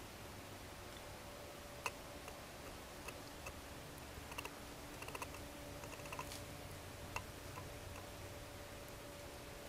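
Faint, irregular clicks and ticks over a steady low hum and hiss.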